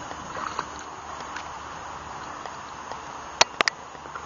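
A white wolf lapping lake water at the shore: a soft steady wash of water noise broken by a few sharp wet clicks, three in quick succession about three and a half seconds in.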